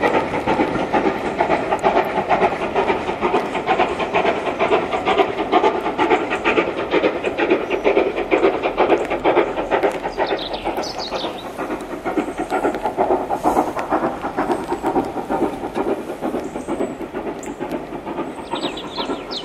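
Great Western pannier tank steam locomotive running non-stop through the station: a dense, rapid rhythm of exhaust and wheel beats that eases slightly in the second half. A bird chirps a couple of times, once about halfway through and again near the end.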